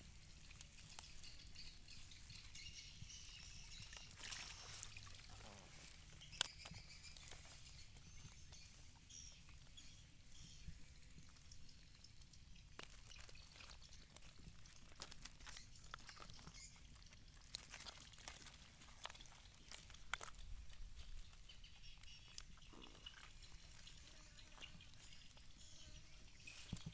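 Faint wet handling of live eels and fish squirming in a woven bamboo basket, with scattered small clicks and slaps, the sharpest about six seconds in, over a quiet outdoor background.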